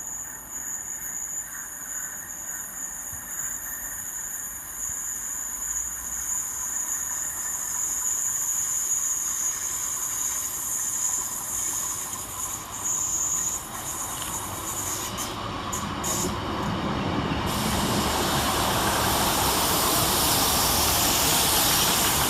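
Transport for Wales Class 150 diesel multiple unit arriving at a station platform, its train noise growing steadily louder and loudest near the end.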